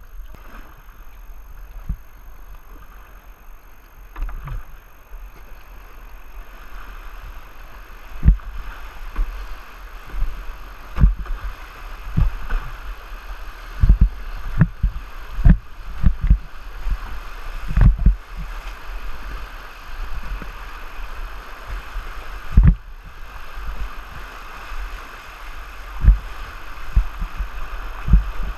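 River rapids rushing around a whitewater kayak as it paddles through broken water, with irregular heavy thumps and splashes from the paddle strokes and waves hitting the boat, most frequent through the middle.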